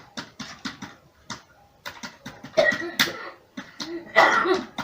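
Computer keyboard being typed on: irregular key clicks, a few per second, sometimes in quick runs. A louder voice-like sound comes twice, about two and a half seconds in and again near the end.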